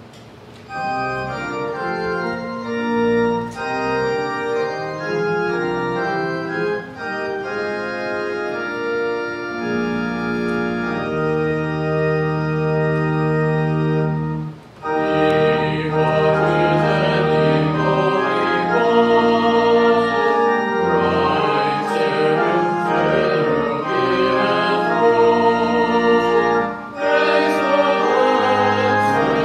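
Church organ playing the introduction to a hymn in sustained chords. About halfway through, singing voices join in with the organ.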